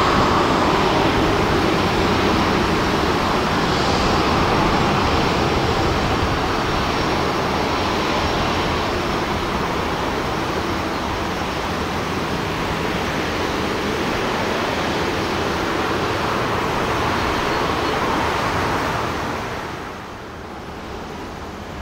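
Jet engines of a twin-engine Airbus widebody airliner at takeoff thrust: a loud, steady roar that falls away quickly near the end.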